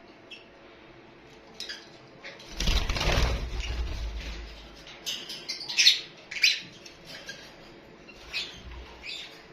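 Lovebirds flapping their wings in a short flurry about two and a half seconds in, followed by a string of sharp, high chirps.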